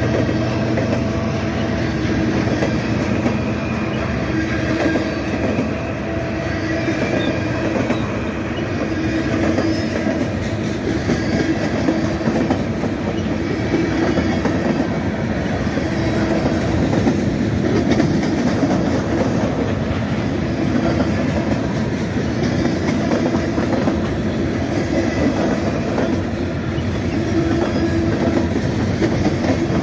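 Freight train of loaded container cars rolling past at steady speed, its wheels rumbling and clicking over the rail joints.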